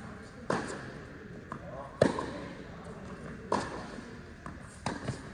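Tennis balls struck with rackets in a rally, four sharp hits about one and a half seconds apart, with fainter ball bounces between them. The hits echo in a large indoor tennis hall.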